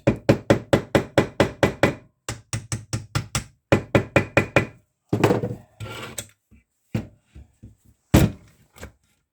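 Hammer tapping rapidly on a motorcycle gearbox part to work it into place, about six blows a second in three runs. Then slower, scattered knocks, with one heavier blow near the end.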